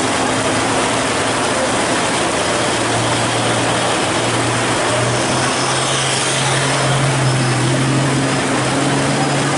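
Heavy rain pouring down over a fuel tanker truck's diesel engine running as it labours through floodwater. The engine note comes up about three seconds in and rises slightly in pitch as the truck draws close.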